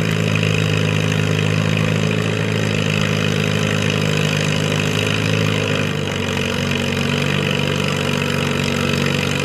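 Farm tractor's diesel engine running steadily, its pitch dropping slightly about six seconds in.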